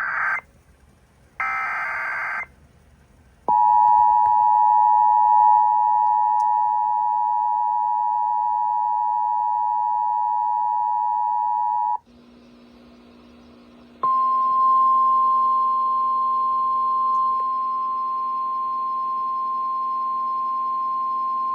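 Emergency Alert System tones: after a couple of brief bursts, the two-tone EAS attention signal sounds steadily for about eight seconds and cuts off. After a short gap, a single steady tone, the NOAA Weather Radio warning alarm tone, starts with a low hum beneath it and holds to the end.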